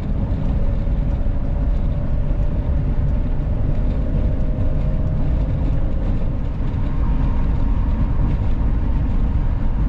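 Steady road and engine noise inside a vehicle cruising at highway speed, with a faint steady whine over the low rumble.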